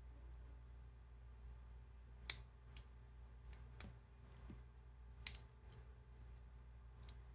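Faint, sharp clicks and taps from a lock and small tools being handled while taking the lock apart. Two louder clicks come about two and five seconds in, with softer ones scattered between.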